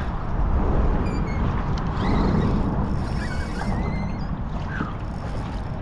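Water washing against a pedal kayak's hull as it is pedaled after a hooked fish, under a steady low rumble, with a few faint, wavering high squeaks.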